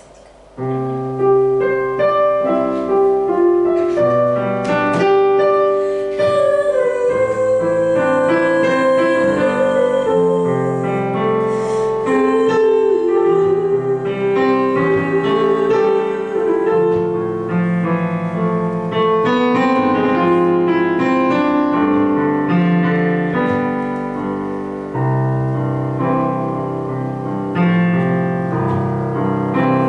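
Digital piano playing a jazz accompaniment in chords and runs, starting suddenly about half a second in.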